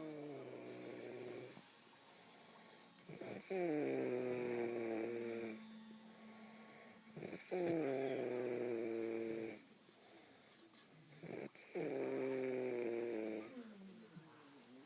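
A man snoring in his sleep with pitched, hooting snores. After the tail of one snore at the start, three loud snores of about two seconds each come roughly every four seconds, each sliding down in pitch at first and then holding steady, with quieter breaths between.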